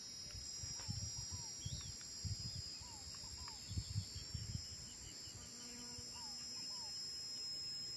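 Insects trilling steadily in a high, even buzz, with scattered short falling chirps and a few soft low thuds in the first half.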